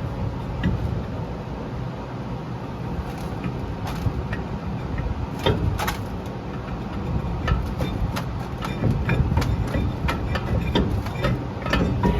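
Scattered metal clicks, knocks and scrapes from a brake rotor being worked on the rear hub over parking brake shoes adjusted out too far, so the rotor drags hard, against a steady low rumble.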